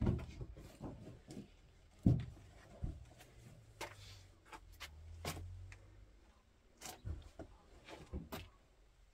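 A heavy woven carpet being handled and rolled on the floor: irregular soft thumps and scuffs with scattered sharp clicks, the loudest thump about two seconds in.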